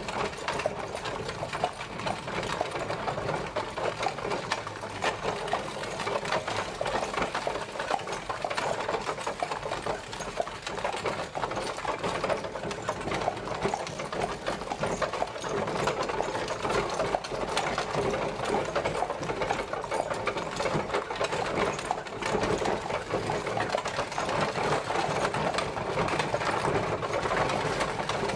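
Horse-drawn carriage travelling: a steady, dense rattle and clatter of the carriage in motion, unbroken and even.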